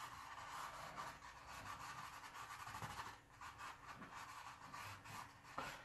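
Faint rubbing and scratching of a thin paintbrush working black oil paint onto a stretched canvas, in soft uneven strokes.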